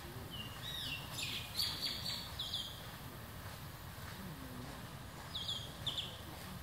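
Baby macaque giving short, high-pitched squealing cries in two bursts, the first about half a second in and the second near the end. The cries are a sign of distress while it is held and rolled over by an adult.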